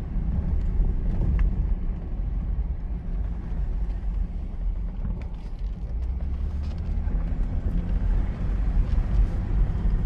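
Jeep driving on a gravel road: a steady low rumble of engine and tyres, with scattered light ticks of gravel.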